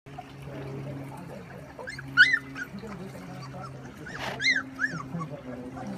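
Young puppies giving short, high whimpering yips in two little clusters, about two seconds in and again around four and a half seconds, over a steady low hum.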